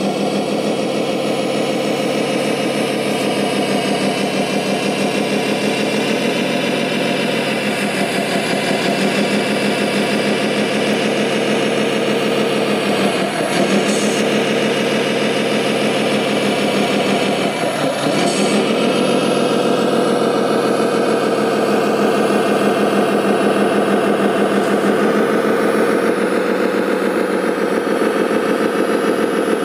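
Diesel engine sound of an RC model Kirovets K-700 tractor running steadily under a light load. The pitch dips and climbs back twice, about 13 and 18 seconds in, each time with a short hiss.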